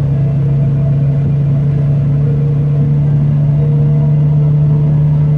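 V10 3-valve pickup truck engine running at a steady drone while driving, its pitch and loudness holding even.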